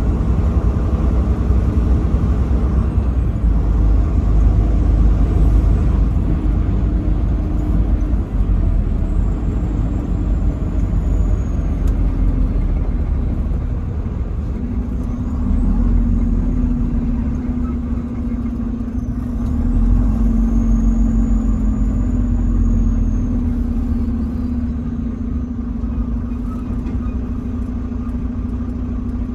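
Truck driving on a highway: a steady low rumble of engine and road noise, with a steadier engine hum coming in about halfway through.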